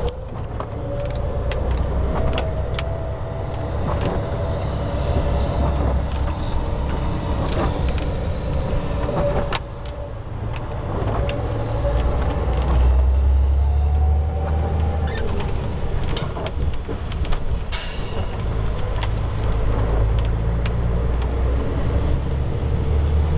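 Engine and road noise of a DAF XF truck heard from inside the cab as it drives at speed: a steady low rumble with scattered clicks and rattles. The level dips briefly about ten seconds in, then picks up again.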